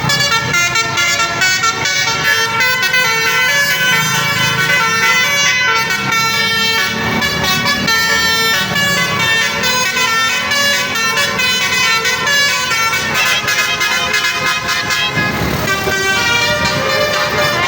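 Tour bus 'telolet' musical air horn playing a tune, several horn notes sounding together and changing pitch step by step without a break.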